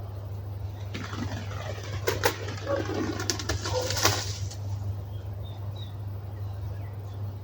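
Birds flying in to roost in a hawthorn: a flurry of flapping wings and short calls lasting a few seconds, starting about a second in.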